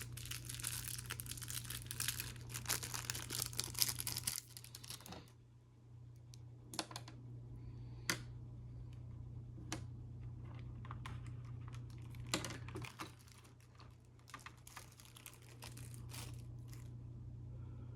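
Packaging being handled while a diecast model airliner is unboxed: dense crinkling and rustling for about the first five seconds, then scattered light clicks and rustles.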